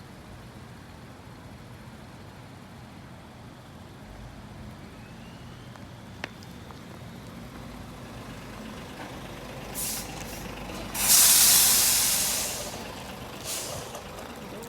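Highway traffic rumble with a heavy truck's air brakes hissing: a short hiss about ten seconds in, then a loud hiss lasting over a second that fades away, and another short hiss near the end.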